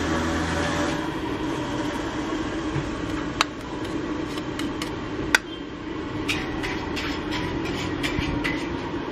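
Steady roar of a gas wok burner at a hawker stall, with sharp metallic clinks of a metal wok spatula and ladle, two single clinks and then a quick run of them in the last few seconds.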